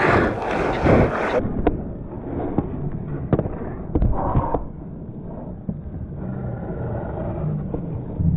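Ice hockey play close around the goal crease: skate blades scraping the ice, with a series of sharp clacks from sticks and puck.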